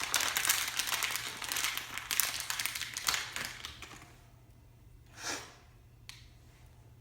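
Packaging crinkling and rustling as a small boxed camera is unpacked by hand, dying away after about four seconds, with one short swish about five seconds in.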